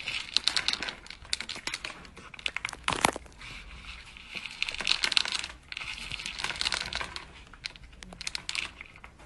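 Dry kibble clicking and rattling in a plastic bowl as a cat paws at it and eats: a dense run of small clicks, with a louder clatter about three seconds in.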